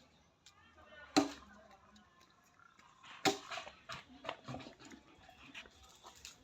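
Goats in a pen: two sudden short, loud calls, about a second in and about three seconds in, among lighter knocks and shuffling.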